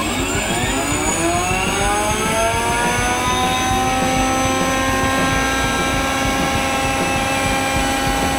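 In-wheel three-phase electric motor of an electric motorcycle spinning up on a dyno: a whine that rises in pitch over the first few seconds, then holds steady at speed.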